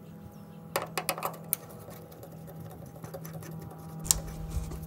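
Cordless power screwdriver running steadily, backing out the screw on top of an aircraft wingtip navigation light housing, with a few sharp clicks of the bit against the metal about a second in and again near the end.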